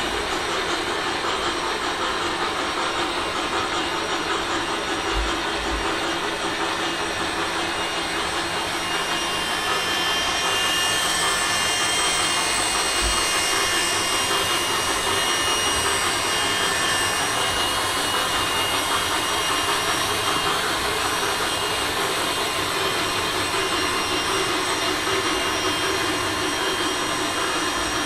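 Blade MSR micro RC helicopter's small electric motors and rotor blades whirring in a steady high whine as it hovers, getting a little louder with added whining tones about ten seconds in.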